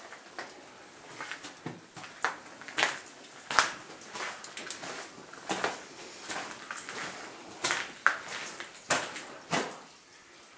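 Footsteps along the floor of an anthracite coal mine tunnel, irregular and about one or two a second, with water dripping.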